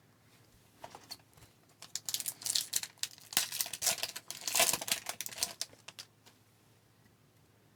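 Foil wrapper of a hockey card pack crinkling and tearing as it is opened, in two main bursts of crackling.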